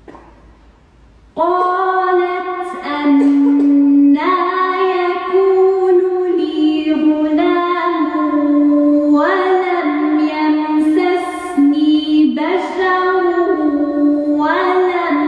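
A woman's solo voice chanting a Quran recitation in Arabic. She holds long melodic notes with ornamented turns between them, starting about a second and a half in after a quiet opening.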